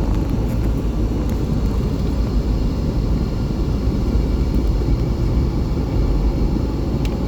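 A car being driven along a road: a steady low rumble of tyre and engine noise.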